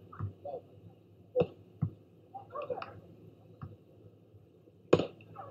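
A few sharp smacks of hands striking a volleyball, the loudest near the end, with faint players' voices calling in between.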